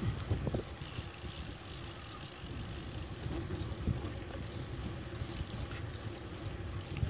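Wind rumble on a bicycle-mounted microphone together with tyre noise from riding along an asphalt cycle path. There are a few light knocks, mostly in the first second.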